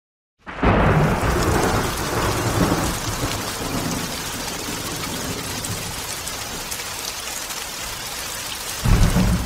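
Thunderstorm: steady rain with a rumble of thunder as it starts and another rumble near the end.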